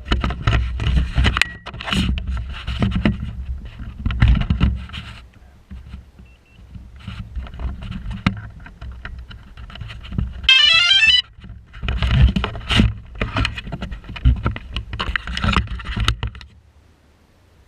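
Handling noise, irregular knocks and rustling over a low rumble. About ten seconds in, a short electronic beep tune of quickly stepping tones sounds for under a second.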